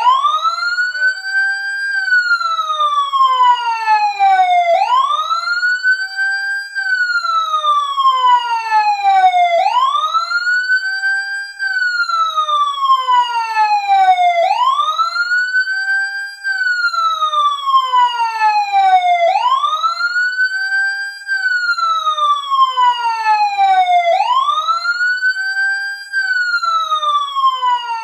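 Fire truck siren wailing as the timer's alarm. Each cycle rises quickly to a high pitch, holds briefly, then slides slowly back down, repeating about every five seconds, six times over.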